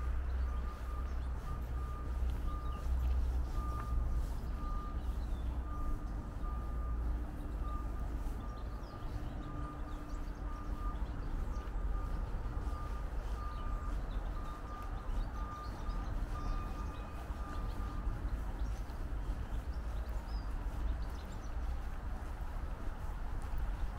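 A vehicle's reversing alarm beeping over and over at one steady pitch, stopping about three-quarters of the way through, over a steady low rumble.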